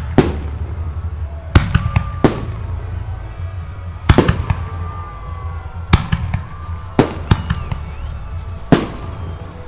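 Aerial firework shells bursting overhead: about nine sharp booms, irregularly spaced a second or two apart, each trailing off in an echo over a steady low rumble.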